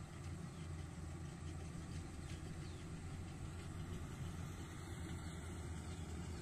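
Rice combine harvester engine running at a steady, even pace, a constant low hum with no changes in speed.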